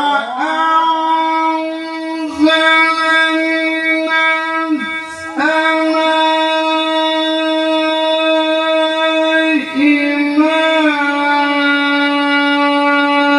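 A male Quran reciter chanting through a microphone, holding one long, steady note that rises into pitch at the start. About ten seconds in he adds a brief wavering melodic ornament before the phrase ends.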